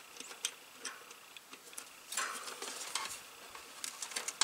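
Scattered light clicks and rustling of wires being handled as push-on wire connectors are fitted to the terminals of a heat pump's run capacitor.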